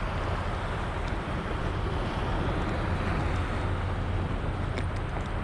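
Steady rushing wind noise on an action camera's microphone at sea, with a few faint clicks near the end.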